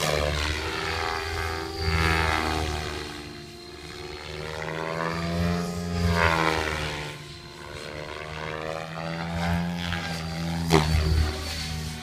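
Align T-Rex 700E electric RC helicopter in aerobatic flight: the rotor blades' hum with a faint high whine from the electric motor. The pitch sweeps down and up as it passes, and it swells louder and fades several times.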